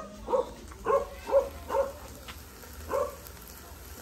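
A dog barking: five short barks in quick succession, then one more after a pause.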